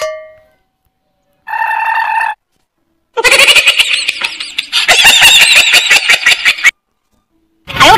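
A run of short comedy sound-effect clips separated by silences. There is a brief ringing hit, then a held pitched tone for about a second, then a rapidly pulsing, chattering effect lasting about three and a half seconds, and another loud burst near the end.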